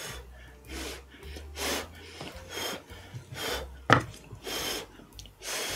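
Short breathy puffs, about one a second, of someone blowing on and huffing around spoonfuls of hot stone-grilled bibimbap, with one sharp click about four seconds in.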